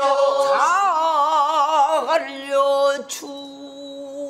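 A woman singing pansori in a husky voice, holding long drawn-out notes. In the first two seconds the pitch wavers in a wide, shaking vibrato. It slides down twice, then settles on a steady held tone.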